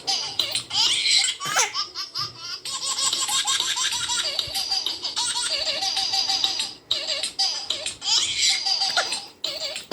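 Baby laughing in repeated fits of giggles, each run of short rapid laughs breaking off briefly before the next starts.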